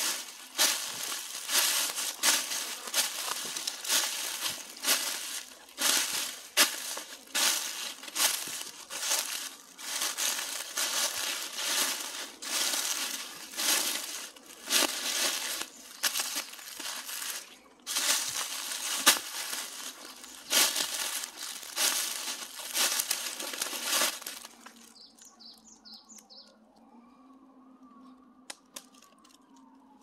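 Footsteps crunching through last year's fallen leaves at a walking pace, stopping about 24 seconds in.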